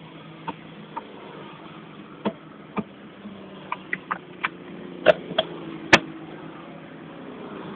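Ferrari engine idling, heard from inside the cabin as a steady low hum, with a string of sharp irregular clicks and knocks over it, the loudest two about five and six seconds in.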